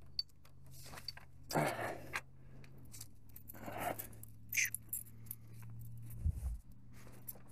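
Scuffing and rustling of someone walking a leaf-strewn dirt path, in several short bursts over a low steady hum, with a dull thump near the end.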